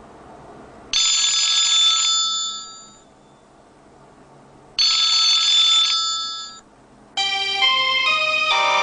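iPhone ringtone imitating an old telephone bell: two rings almost four seconds apart, each a rapid trill that rings on and fades. Near the end a different, melodic ringtone begins.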